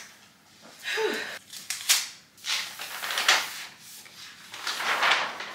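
Paper being handled and rustled in several short, irregular bursts.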